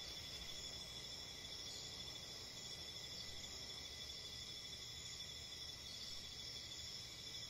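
Steady night chorus of crickets, a constant high trilling, over faint low background noise.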